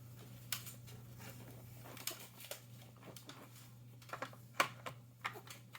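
Jigsaw puzzle pieces clicking and tapping on a tabletop as they are handled and fitted together: a string of light, irregular taps, a few of them clustered about four to five seconds in.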